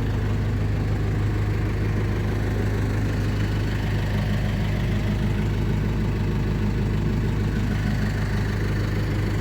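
Diesel engine running steadily, a constant low hum with no change in speed.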